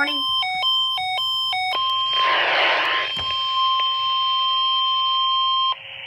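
A Midland handheld radio's speaker sounding a weather alert, signalling a tornado warning. It beeps back and forth between two pitches, then about two seconds in switches to the steady NOAA Weather Radio warning tone, which runs for about four seconds and cuts off suddenly near the end, with a brief rush of hiss early in the tone.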